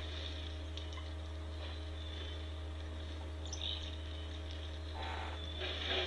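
Outdoor ambience: a steady low hum with a few faint short chirps a little past the middle and a brief rustle about five seconds in.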